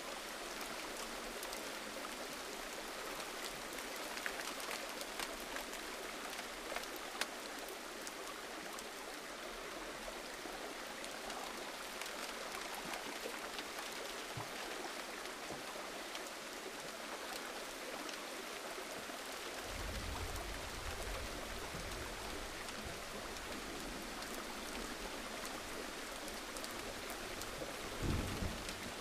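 Steady gentle rain, an even hiss with scattered individual drops ticking. A low rumble joins about two-thirds of the way through and swells briefly near the end.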